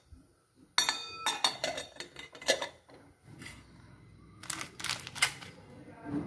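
Kitchen utensils clinking and knocking: a ringing clink about a second in, then a series of sharp knocks and clatters.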